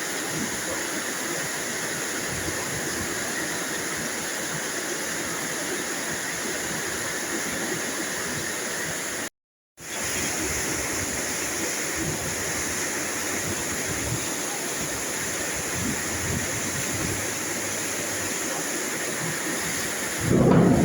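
Steady rain, an even hiss of falling water, which cuts out to silence for about half a second a little before the halfway point. Near the end a louder low rumble sets in.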